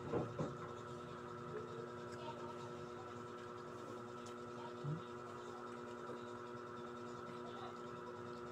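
Faint steady hum made of several held tones, with a soft short sound about five seconds in.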